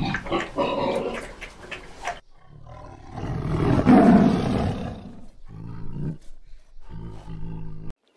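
Pigs grunting and squealing for about two seconds. Then a tiger roars once, long and building to its loudest about four seconds in, followed by a few shorter growls.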